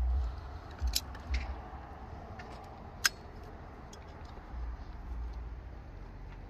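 Scattered sharp metallic clicks and taps as a brass hose spigot is screwed onto a riser pipe with pliers, the loudest click about three seconds in, over a low rumble of handling noise.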